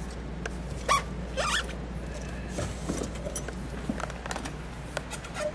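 Rustling, sliding and light scraping of objects being handled in a car trunk, with scattered small clicks, the loudest about a second in, over a steady low hum.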